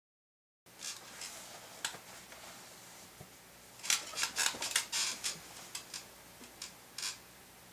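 Dead silence for the first half second, then quiet room noise with scattered light clicks and taps, a quick run of them about four to five seconds in.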